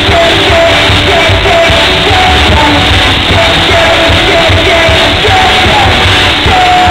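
Live pop-rock band playing loud, with a male lead vocal singing short repeated phrases over driving drums, bass and electric guitar, and a long held vocal note near the end. Crowd yelling along. It is recorded through an overloaded, muffled camera microphone.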